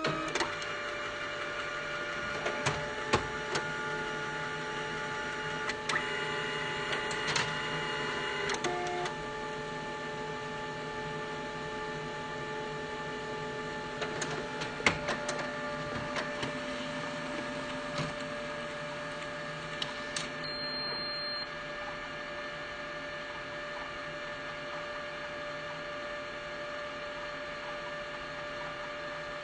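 Printer running: a steady mechanical whine and hum with scattered sharp clicks and clunks, the whine changing pitch a couple of times along the way.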